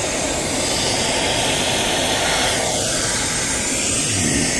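Compressed air hissing steadily out of a loose air hose between two passenger rail carriages, a loud, even rush with no break.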